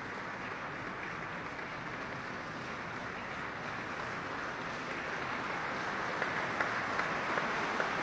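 Audience applauding in a large hall, a steady patter of clapping that swells over the last few seconds, with single claps standing out near the end.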